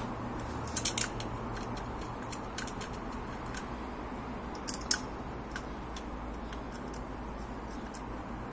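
Small metal engine parts clicking and clinking as they are handled at a motorcycle crankcase: a quick cluster of three clicks about a second in, two sharper ones near five seconds, and lighter ticks between. A steady low hum runs underneath.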